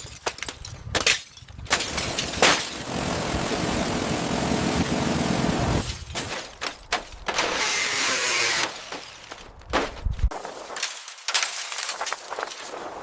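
Work sounds from stripping and restoring a bus: a string of sharp knocks and breaking sounds, with two stretches of steady rushing noise of a few seconds each in the middle.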